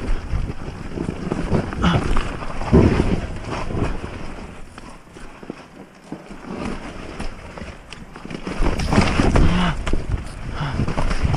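Enduro motorcycle rolling down a steep, rough forest trail on a low throttle, its chassis and suspension knocking and rattling over roots and rocks. It goes quieter around the middle and picks up again with more knocks near the end.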